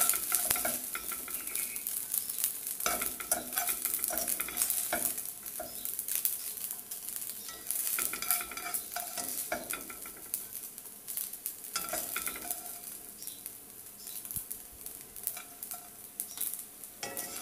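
Hot fried rice sizzling and crackling, with scattered light clicks over a steady high hiss.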